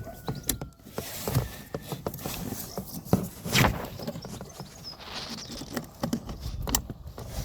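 Hands working cables and plastic parts inside a car door: scattered clicks, taps and rustling at irregular intervals.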